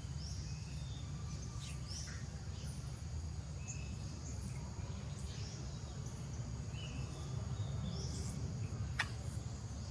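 Forest ambience: a steady low rumble under scattered short bird chirps and a steady high insect drone, with one sharp click about nine seconds in.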